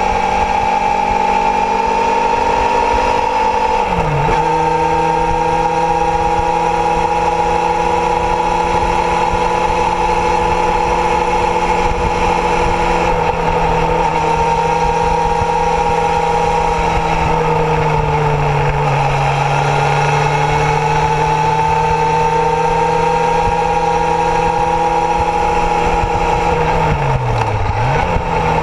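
Kawasaki Zephyr's air-cooled inline-four engine running at a steady cruising speed, heard from on board the bike. Its pitch drops sharply and recovers slightly lower twice, about four seconds in and near the end, as gears are changed up, and it sags and climbs back again midway as the throttle is eased and reopened.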